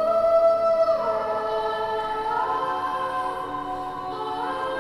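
Choral music with held chords. The harmony slides to a new chord about a second in and again near the end.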